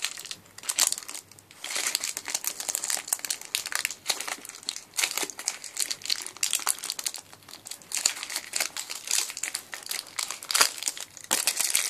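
Paper crinkling and crackling in quick, irregular crackles as it is crumpled and peeled off a sticky gummy candy carrot that it has stuck to.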